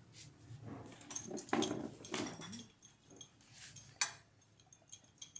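Metal tools and parts clinking and tapping during hand work on the car, with a sharp knock about four seconds in. A short pitched, voice-like sound that bends in pitch comes in the middle.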